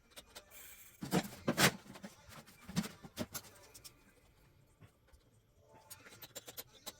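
Scattered clicks and a few sharp knocks of objects being handled, the loudest a cluster between one and two seconds in.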